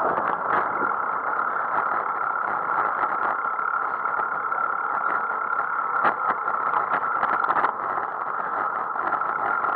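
Steady rushing road and wind noise from a bicycle rolling along tarmac, picked up by a camera mounted on the bike, with a few sharp knocks from bumps, mostly between six and eight seconds in.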